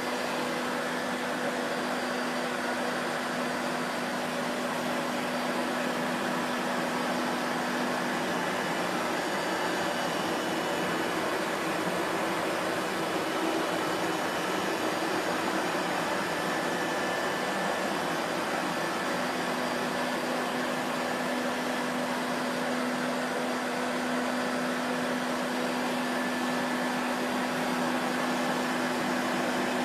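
Vacuum cleaner motor running continuously, a steady rushing whirr with a faint motor hum that wavers slightly in pitch.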